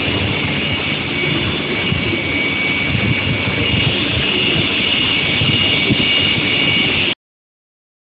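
Induction heating furnace running: a steady high-pitched whine over loud, even machine rumble. It cuts off suddenly near the end.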